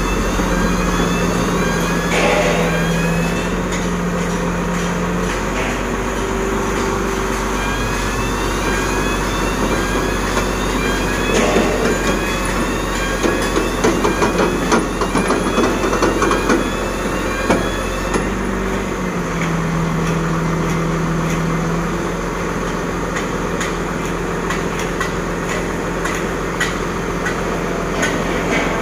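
Heavy diesel engine running steadily, its note shifting about two-thirds of the way through. A rapid run of metal knocks and clanks comes in the middle.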